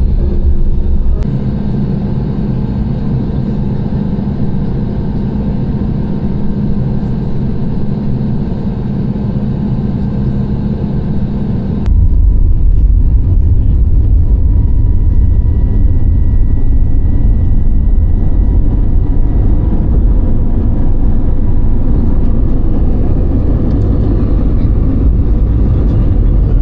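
Airliner cabin noise: the steady hum of jet engines and cabin air, with a few faint steady tones. About twelve seconds in it switches abruptly to a louder, deeper rumble.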